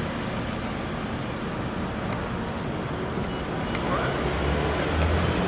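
Range Rover Sport SUV driving slowly past at close range: engine and tyre noise, a low rumble that gets louder near the end as it draws level.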